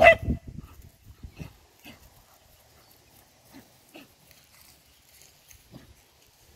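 Two dogs playing: a loud bark right at the start over low, pulsing play-growling that stops within half a second, followed by a few short, faint sounds from the dogs.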